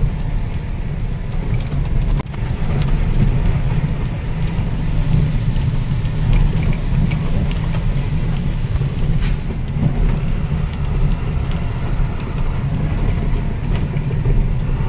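Goods truck driving, its engine and the road making a steady low rumble, with scattered light clicks and rattles.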